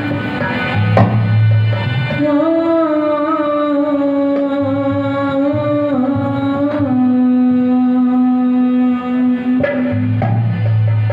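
Live harmonium playing a held, stepping melody with tabla drumming under it, accompanying a Hindi devotional song (bhajan); a voice sings along with the melody.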